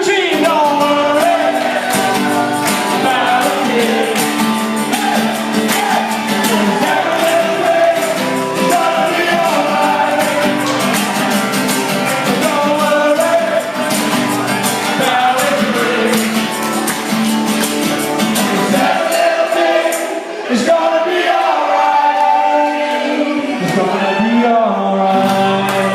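Live band playing a cover song, with singing over strummed instruments and a steady beat.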